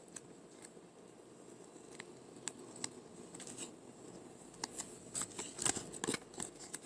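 Faint crinkling and light clicks of a paper sticker being peeled off its glossy backing sheet and handled by fingers. The crackles grow busier in the last two seconds or so.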